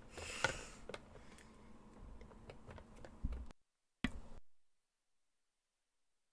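Faint scattered clicks and a short rustle from someone moving about at a desk. About three and a half seconds in the sound cuts to dead silence, broken once by a brief rustle.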